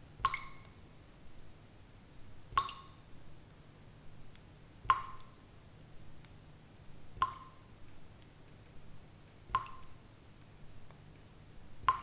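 Water drops falling at a steady rhythm, one about every two and a quarter seconds, each a short ringing plink, with fainter small ticks in between.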